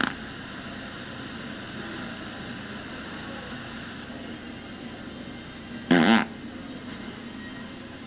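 A Pooter fart-noise toy lets out one short, loud fart sound about six seconds in, over a steady background hum.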